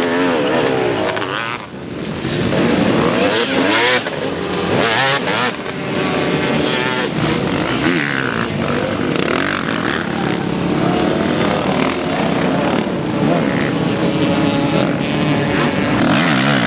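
Several dirt bike engines revving as the bikes pass close by, their pitch rising and falling over and over with the throttle.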